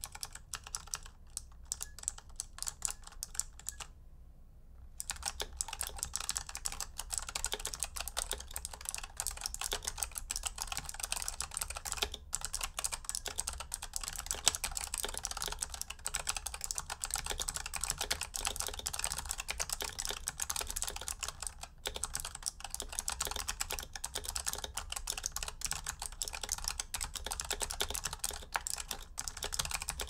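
Typing on a Razer Huntsman Elite's clicky opto-mechanical key switches: a fast, continuous clatter of key clicks, with a brief pause about four seconds in.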